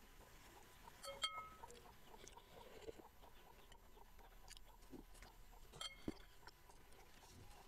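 Metal spoon clinking against a cut-glass bowl, two short ringing clinks about a second in and near six seconds, over faint chewing.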